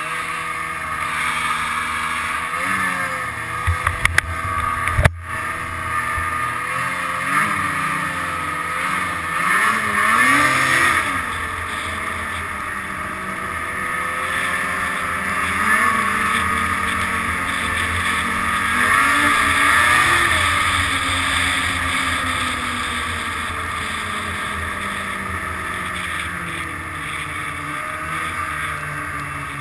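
Snowmobile engine running under way, its pitch rising and falling as the throttle opens and eases off, with a few sharp knocks about four to five seconds in.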